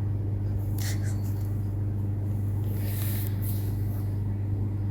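Steady low electrical or mechanical hum, with two brief soft noises about a second in and about three seconds in.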